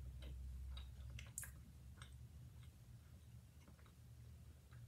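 Near silence: a low steady room hum with a few faint, scattered clicks, mostly in the first couple of seconds.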